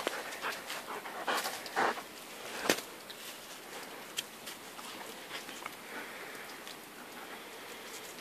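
A Tervuren shepherd dog panting close up, with a few short brushing and knocking noises in the first three seconds.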